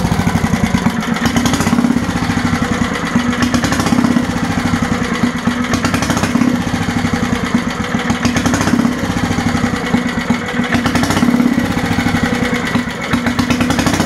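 Single-cylinder Briggs & Stratton engine of an old Bolens garden tractor running at low throttle, with its level swelling and dipping slightly every couple of seconds. It is newly revived after sitting for decades, and the throttle is set possibly a little too low.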